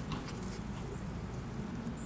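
Young puppies, seven to eight weeks old, moving about with light pattering and rustling over a steady low rumble.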